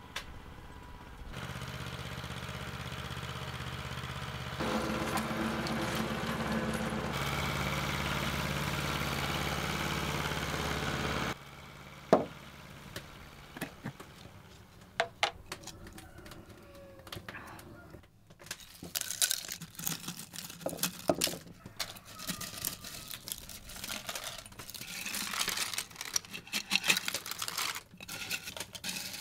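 A steady engine hum that gets louder in two steps, then stops abruptly. Then a glass jar of dried mushrooms is handled: a sharp click as it is opened, then dry mushroom pieces rattling and crinkling against the glass as the jar is tipped.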